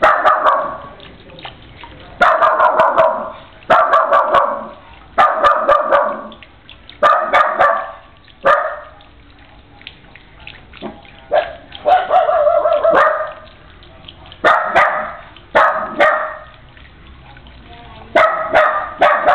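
Loud calls repeated in bursts of a second or less, about ten of them, one to two seconds apart, over the faint steady splash of a small garden fountain.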